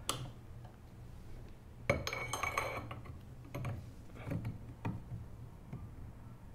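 Metal hand tool clinking and clicking against the crank bolt of a kayak pedal drive as the pedal arm is tightened on. There is a short run of ringing metallic clinks about two seconds in, then a few single clicks.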